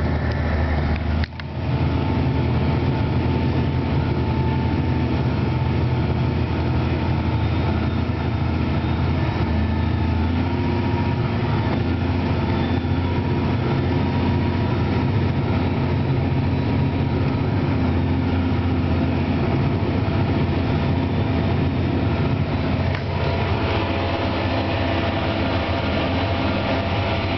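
John Deere 9330 tractor's diesel engine running steadily under load while pulling a harrow, heard from inside the cab as a constant low drone, with a brief break about a second in.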